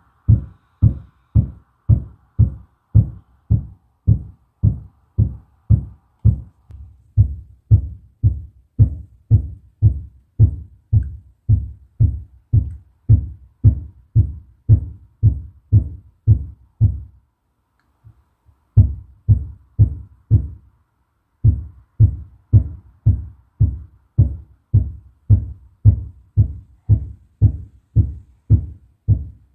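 Steady banging from the apartment above, heard through the ceiling as dull low thuds about twice a second. It pauses briefly twice past the middle.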